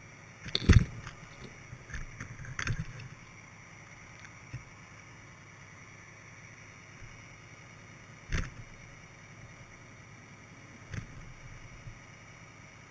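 Sharp knocks and clunks on a GoPro's underwater housing as it hangs on a fishing line, over a steady hiss. A loud cluster comes in the first three seconds, then single knocks about eight and eleven seconds in.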